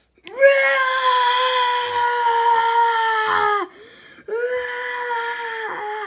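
A person's voice imitating a dinosaur's cry: two long, high wailing calls held on one pitch, the first about three seconds long and the second shorter, each dropping slightly as it ends.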